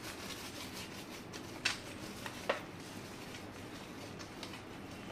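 Quiet handling sounds as a block of butter is rubbed over a cooked roti on a plate, with two light clicks a little under a second apart near the middle.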